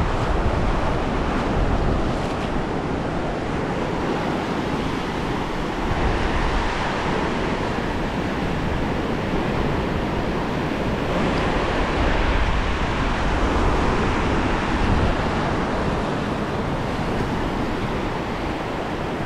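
Small surf washing up on a sandy beach, swelling and easing as the waves come in, with wind buffeting the microphone.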